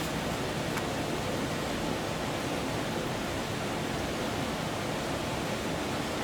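Steady rushing noise with no rhythm or pitch, and one faint light click about a second in.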